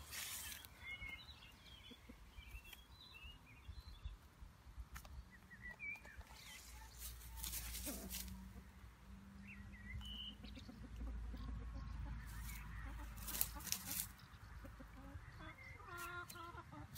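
A hen making soft, scattered clucks and small chirps while foraging in grass, with a clearer short cluck near the end. A few brief rustles break in, the loudest a little before the cluck.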